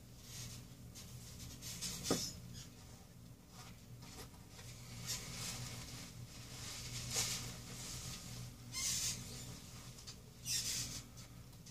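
Shiny nylon track jacket and track pants rustling and swishing as the wearer moves, in short scratchy bursts every second or two, over a steady low hum. A brief squeak falls in pitch about two seconds in.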